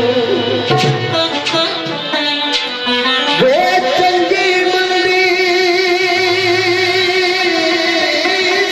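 Pothwari sher folk music: a plucked string instrument plays a run of notes. About three seconds in, the singer's voice slides up into one long held note with a wavering vibrato, sustained over the accompaniment.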